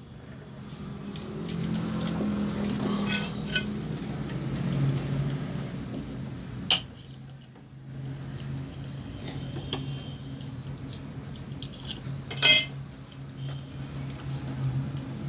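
Metal clinks and sharp clicks of tools and parts being handled while a window air conditioner is taken apart, a few separate knocks with the loudest near the end, over a steady low hum.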